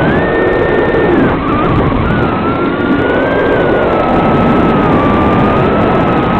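Swallow 130 FPV quadcopter's motors and propellers whining over a steady hiss, picked up by the drone's onboard microphone. The whine's pitch steps up at the start, drops about a second in, then rises and eases again as the throttle changes.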